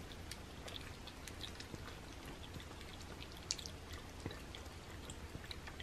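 Several cats lapping and chewing watery raw food from ceramic plates: faint wet licks and small clicks, with a slightly louder click about three and a half seconds in.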